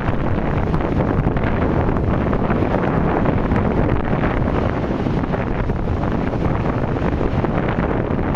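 Strong wind blowing across the microphone, a steady loud noise with no let-up.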